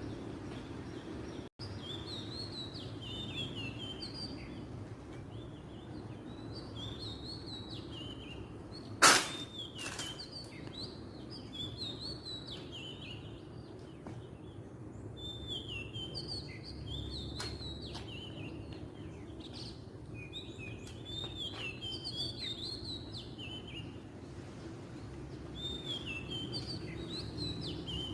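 Oriental magpie-robin singing: varied whistled phrases in runs, with short pauses between them. A single sharp knock about nine seconds in is the loudest sound, over a steady low background noise.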